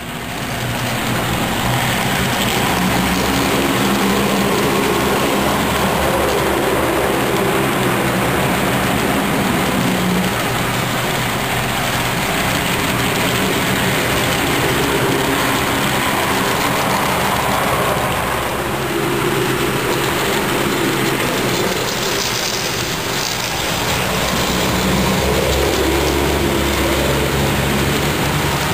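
HO scale model freight train running past: a steady rolling rumble and rattle from the cars and locomotive on the track, with a low hum.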